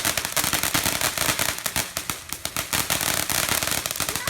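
A ground firework throwing sparks, crackling continuously with a dense stream of rapid sharp pops.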